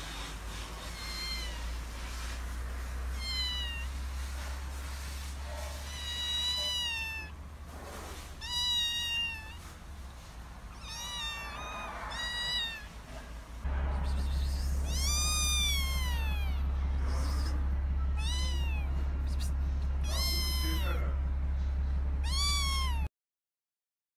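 Kittens meowing over and over, short high calls that rise and then fall, one every second or two and sometimes overlapping. A steady low hum runs underneath and grows louder about halfway through; everything cuts off about a second before the end.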